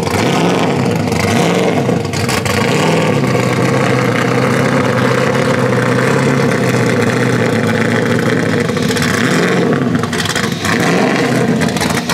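LS V8 engine in a Nissan 240SX (S13) running at low revs under light throttle, its pitch rising and falling with small blips, while the car creeps forward. Through the middle the note holds fairly steady before wavering again near the end.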